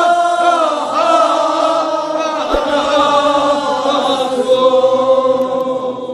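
A group of men chanting a Kashmiri marsiya, a Shia mourning elegy, together in long held notes that bend and slide downward. The chant fades out at the very end.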